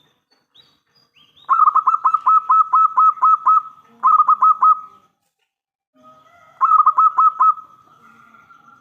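Local-strain zebra dove (perkutut lokal) cooing in fast staccato runs of short notes, about four to five a second, in three bursts, the middle one shortest; the last run trails off into a fainter held note. A faint high chirp or two comes just before the first run.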